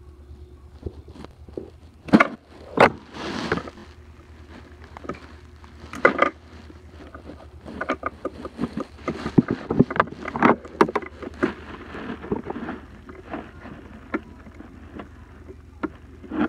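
Plastic toy animal figures tapped and knocked against a wooden tabletop: an irregular string of clicks and knocks, busiest in the middle. A brief rustle of clothing brushes close to the microphone about three seconds in.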